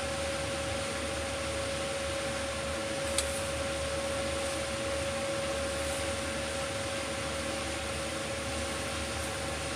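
A fan running steadily with a constant, even hum. A single light tick about three seconds in.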